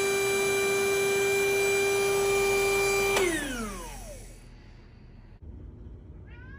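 Electric air pump running with a steady hum while it deflates an inflatable air mattress. It is switched off about three seconds in, and its pitch falls as the motor spins down.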